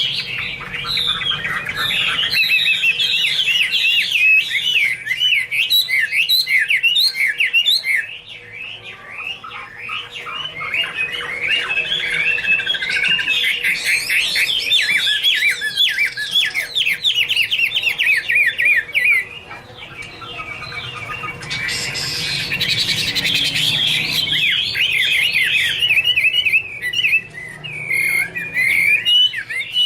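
Chinese hwamei (Garrulax canorus) singing: a long, fast run of varied whistled and chattering phrases, easing off briefly about eight seconds in and again near twenty seconds.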